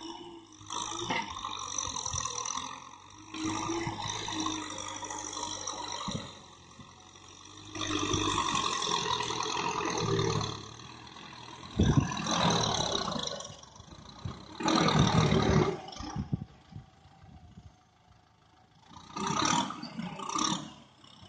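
Compact tractor running as it pulls a rotary tiller through dry soil. The engine sound comes with clatter and rattle and rises and falls in surges every few seconds. There is a sharp knock just past halfway.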